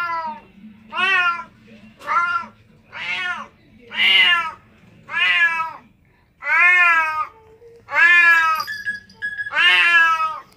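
A domestic cat meowing loudly over and over, about one meow a second, nine in all. Each meow rises and then falls in pitch, and the later ones are longer and more drawn out.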